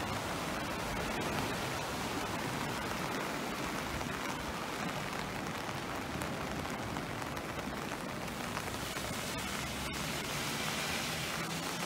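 Steady rushing of a swollen, flooding river mixed with falling rain.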